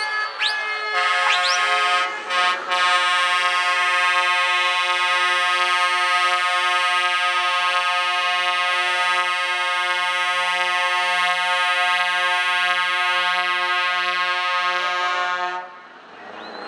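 Multi-tone truck air horn sounding a loud, sustained chord, with quick rising whoops in the first second and two short breaks about two seconds in, then cutting off suddenly near the end.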